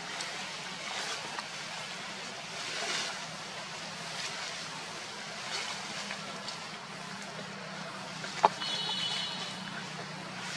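Steady low motor hum, with a faint rustle of dry leaves as monkeys wrestle and groom on them. A sharp click comes about eight and a half seconds in, followed by a short high squeak.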